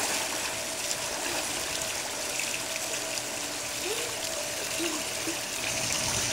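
Pool water sloshing and trickling as a young child swims across a small swimming pool, with a splash right at the start as she surfaces.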